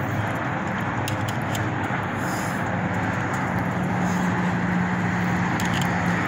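Steady road traffic noise, with a low steady hum that grows stronger about three seconds in.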